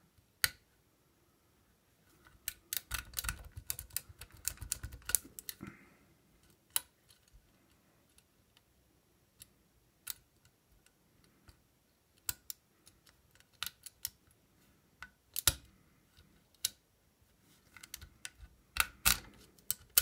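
A steel lock pick clicking and scraping against the pins inside an old Eagle mailbox lock's cylinder, held under a tension wrench. Irregular small clicks come in a quick patter for a few seconds after the start and again near the end, with single clicks scattered between.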